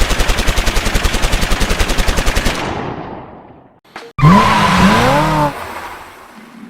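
A rapid train of sharp shots or clicks, about fourteen a second like machine-gun fire, fading out over about three seconds; after a brief gap a loud pitched sound that rises and falls in pitch for about a second and a half, then fades.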